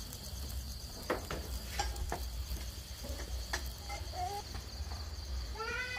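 Night insects, crickets among them, trilling steadily in a high pulsing chorus over a low rumble, with a few sharp clicks and a short rising call near the end.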